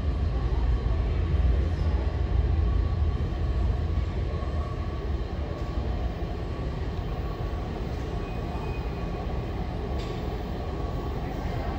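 Washington Metro Red Line train running at an underground platform: a low rumble of wheels and motors, loudest in the first few seconds and then easing to a steadier, quieter running sound.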